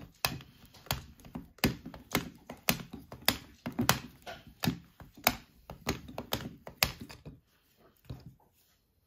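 Addi Egg six-needle i-cord knitting machine being hand-cranked, its mechanism clicking and tapping in an uneven series as the needles knit the cord. The clicking stops about seven seconds in.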